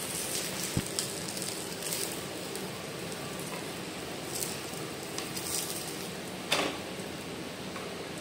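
A semolina pancake frying in a little oil on a nonstick pan, with a steady faint sizzle. A wooden spatula scrapes and knocks against the pan a few times; the loudest scrape comes about six and a half seconds in.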